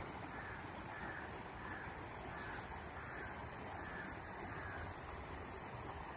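A crow cawing faintly in a long, evenly spaced series, about three caws every two seconds, over a steady rushing background noise.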